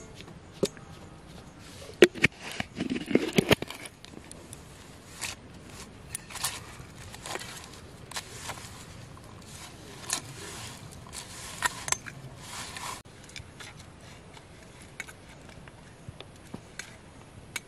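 Hands mixing and kneading flour into a dough in a stainless steel plate, with irregular scraping and rustling against the metal. A quick cluster of knocks and clatter comes about two to four seconds in, and the scraping stops a few seconds before the end.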